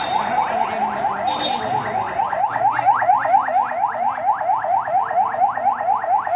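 Emergency vehicle siren in fast yelp mode: a quick repeating rising sweep, about five or six a second, growing more distinct about two seconds in.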